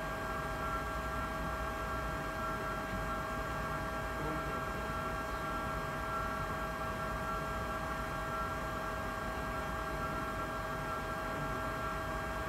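Steady electrical hum of laboratory equipment running a plasma-column experiment, with several constant high-pitched tones over a low rumble.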